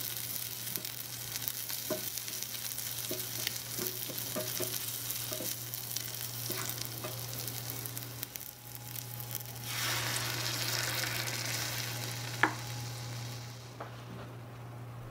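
Shrimp sizzling in a miniature frying pan while a small wooden spatula stirs and taps against it. About ten seconds in, a louder, fuller hiss sets in for a few seconds as cream goes into the hot pan, with one sharp click before it dies down.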